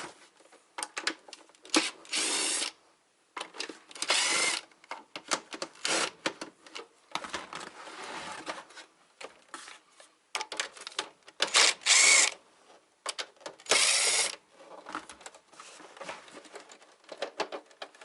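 Cordless power screwdriver running in several short bursts, each about a second or less, backing out screws, between clicks and rattles of the UPS's plastic case being handled.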